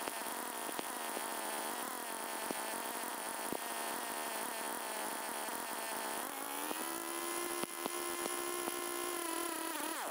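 Stihl FS 250 brushcutter's two-stroke engine idling unattended, running off the last of the fuel mix left in the carburettor after the tank was drained, to empty the fuel system for winter storage. The pitch rises a little about six seconds in, then drops near the end as the engine starts to die from fuel starvation.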